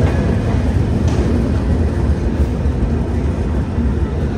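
Steady low rumble of a passenger train running, heard from inside the coach.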